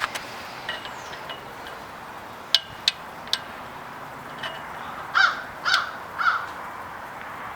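A few sharp clicks from metal hammock-stand parts being handled while a bolt is worked into its hole. Then three harsh bird calls in a row, about half a second apart, near the end.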